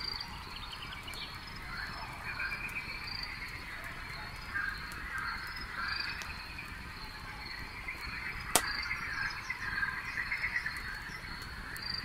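Campfire crackling, with one sharp pop about eight and a half seconds in, over a night chorus of calling animals with a steady high drone.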